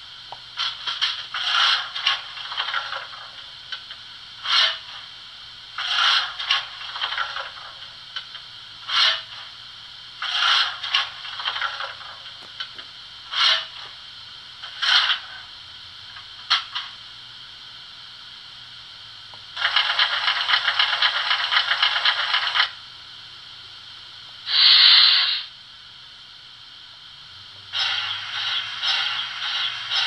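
Märklin BR 44 model steam locomotive's sound decoder playing its standing-still sound effects through the model's small speaker: a run of short, irregular hissing and scraping bursts, then a longer rattling burst about two-thirds of the way in, a short loud hiss a few seconds later, and more scraping bursts near the end.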